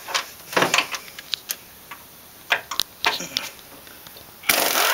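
Scattered metallic clicks and taps of hand tools working on the steering linkage bolts, then a loud hiss that starts suddenly near the end.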